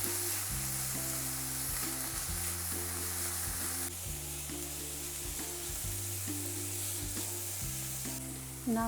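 Chopped onion and garlic sizzling in hot olive oil as they are stir-fried in a pan, a steady hiss that eases about four seconds in. Soft background music with slow, changing bass notes plays underneath.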